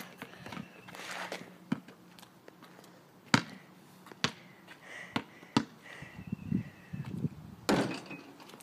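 Basketball bouncing on a concrete driveway and striking the hoop: about five sharp thuds at irregular intervals, the loudest about three seconds in.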